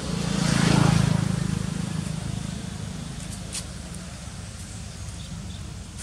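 A motor vehicle passing close by, swelling to its loudest about a second in and fading away over the next two seconds, over a steady low hum. A few short clicks come about three and a half seconds in.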